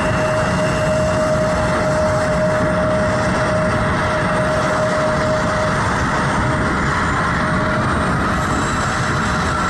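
Airliner jet engines running: a steady roar with a high whine that fades out about six seconds in.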